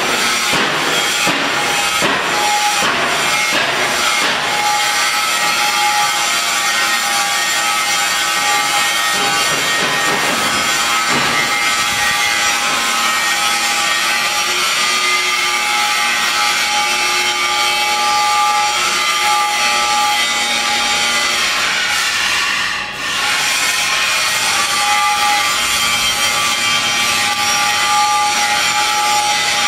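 Hydraulic PET bottle baler machine running: a steady motor-and-pump drone with a constant whine. About 23 seconds in it dips briefly, the pitch sagging and recovering.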